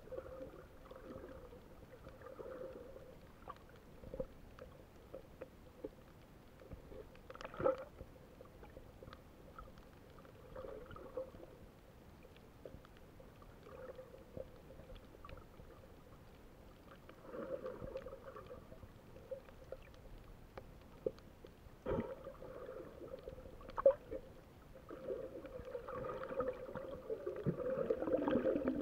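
Muffled underwater sound picked up by a submerged camera: soft water movement with gurgles every few seconds and a few sharp clicks, the gurgling growing louder near the end.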